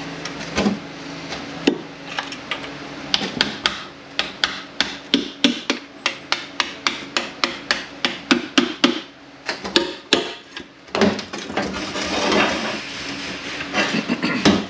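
A scraper being tapped in between the metal oil pan and the transmission case of a Kia A6LF2 automatic transmission to break the pan's seal. It makes a long run of quick, sharp metal taps, about five a second, then rough scraping as the pan is worked loose.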